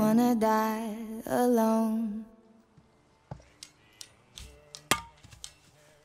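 A song with singing that ends about two seconds in, then a series of sharp wooden knocks and cracks, the loudest near the five-second mark, as boards are split into kindling on a chopping stump.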